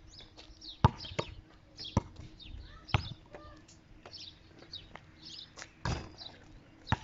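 A basketball bounces on asphalt several times, then near the end a missed three-point shot hits the portable hoop with a heavier thump and the ball bounces again. Birds chirp throughout.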